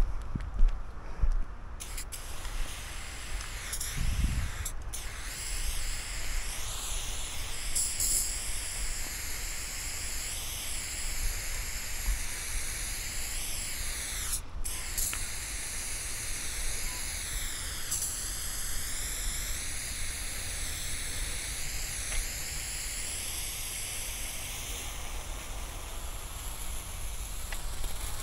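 Aerosol spray-paint can (Ironlak) spraying in long continuous bursts, a steady hiss that wavers in tone, with brief breaks about five seconds in and about halfway through.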